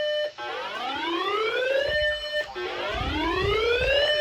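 Electronic siren-style alert tone sounded with a tornado warning: repeated rising wails, each climbing for about two seconds, holding its top pitch briefly and cutting off abruptly before the next begins.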